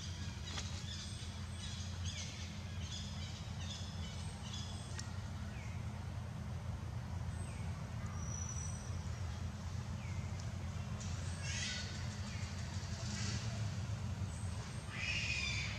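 Outdoor ambience: a steady low hum under repeated short, high chirps and small falling calls, with a few louder, harsher calls near the end.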